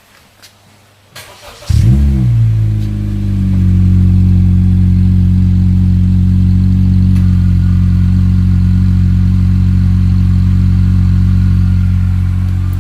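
Honda City's four-cylinder engine cold-started through an aftermarket HKS JASMA-type muffler. It cranks briefly, catches a little under two seconds in with a short flare in revs, then settles into a steady idle.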